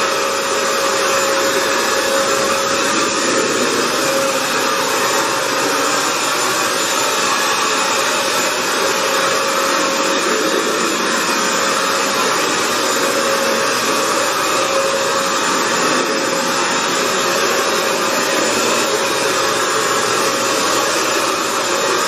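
Hoover FloorMate Edge wet floor cleaner running, its suction motor giving a steady rushing noise with a constant whine.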